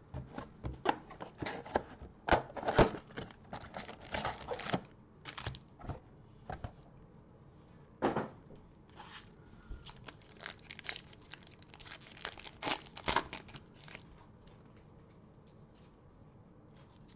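A Panini Prestige 2021 football-card Mega Box and the wrapped card packs inside it being torn open by hand. The tearing and crinkling comes in irregular bursts, thickest over the first few seconds and again from about ten to fourteen seconds in, then thins out near the end.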